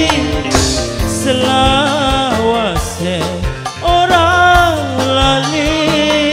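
Live dangdut band music: drums keep a steady beat under a wavering, ornamented melody line.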